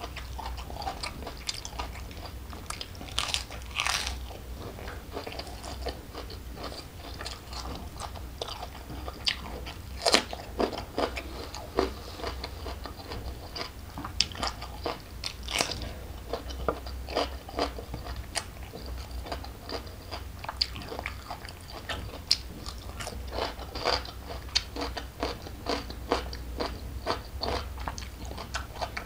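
Close-miked eating: wet chewing with many irregular, sharp crisp crunches of raw vegetables such as lettuce leaves.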